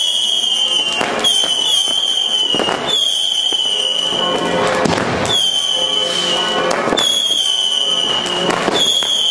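New Year's Eve fireworks: whistling fireworks shrieking one after another, each a high whistle sliding slightly down in pitch for about a second, mixed with several sharp bangs of exploding firecrackers.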